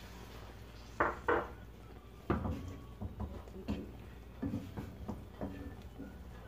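Wooden spatula knocking and scraping against a frying pan as chicken is stir-fried: two sharp knocks about a second in, a heavier one soon after, then a run of lighter knocks.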